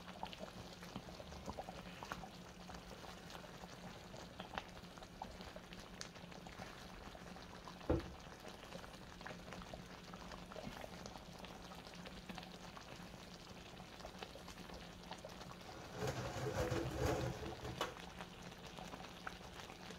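Thick gravy simmering gently in a frying pan over a very low flame, with faint, steady bubbling and small pops. A single knock comes about eight seconds in, and the sound grows briefly louder shortly before the end.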